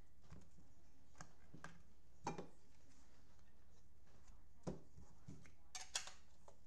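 Gloved hands handling cardboard trading-card hobby boxes: scattered light taps, clicks and rustles, a few of them a little louder about two seconds in and near the end, over a low steady hum.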